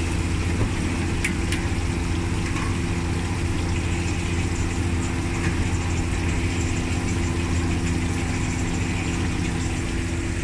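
Steady low machine hum in a commercial kitchen, with oil frying in a wok over a lit gas burner. A few faint clicks sound over it.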